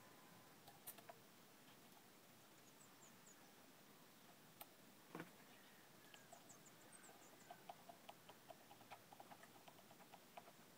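Near silence, with faint small clicks of a screwdriver working a screw into the lever under an electric fan's gear assembly. The clicks come scattered at first, with a single knock about five seconds in, then more often in the second half.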